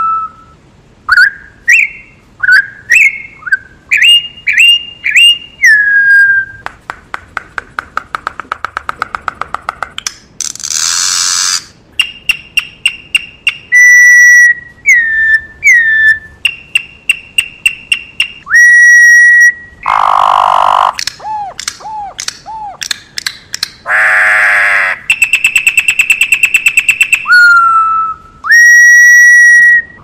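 Campo troupial (corrupião) singing: loud, clear whistled notes, some sliding up and some held, broken up by a rapid dry rattle around the middle and several short harsh chatter notes.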